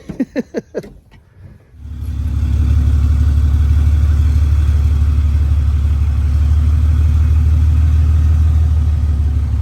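Cummins diesel pickup engine starting about two seconds in, then running with a steady low rumble.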